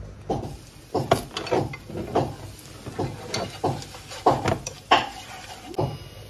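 Wooden chopsticks knocking and scraping against a nonstick frying pan while stirring minced garlic in hot oil: irregular sharp clicks, about two or three a second.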